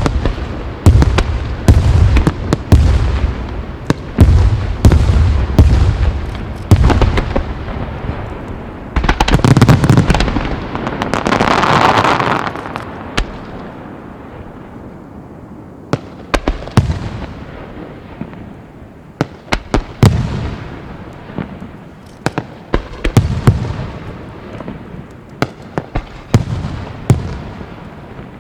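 Starmine fireworks bursting in rapid volleys: deep booms and sharp reports, dense through the first half, with a thick noisy stretch near the middle, then thinning to scattered bangs.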